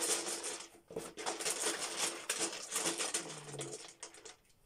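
A handful of small symbol dice rattling as they are shaken inside a hat: a dense clatter that breaks off briefly about a second in and dies away near the end.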